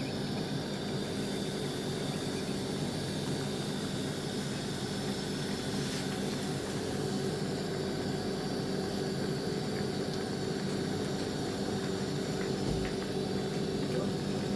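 Shrimp in garlic butter boiling hard in a covered frying pan: a steady bubbling hiss with a low, even hum underneath.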